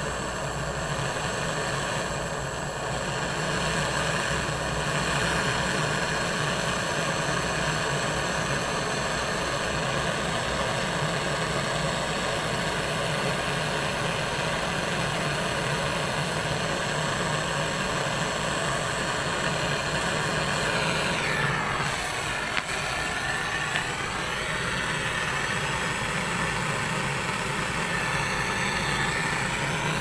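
Handheld butane cartridge torch burning with a steady hissing roar while it heats a copper refrigerant pipe joint on an air-conditioner compressor for brazing. A little past two-thirds through, the tone sweeps down and back up as the flame is moved.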